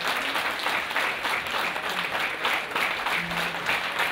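Audience applauding, many people clapping together without a break.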